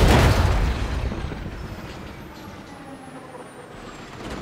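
Mi-8 helicopter crash-landing: a sudden heavy impact as it hits the ground, then a rumbling skid across the dirt that fades over about two seconds.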